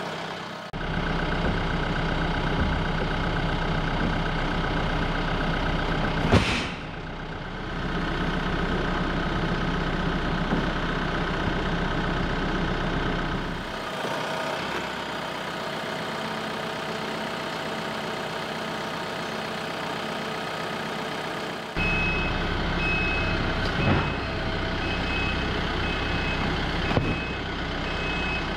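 TYM T654 compact tractor's diesel engine running as its front loader lifts and carries a boxed toolbox on pallet forks, with one sharp clank about six seconds in. Over the last several seconds a high beep repeats at an even pace.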